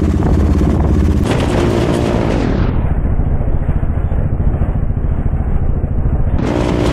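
Loud exhaust of a KTM RC200's single-cylinder engine through an SC Project straight-through aftermarket silencer, heard from the bike while riding. The revs climb and fall about a second in and rise again near the end, over a dense, rapid popping.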